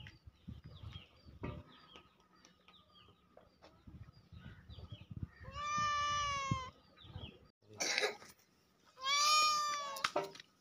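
Domestic cat meowing: two long meows of about a second each, the first about halfway through and the second near the end. A short burst of noise comes just before the second meow.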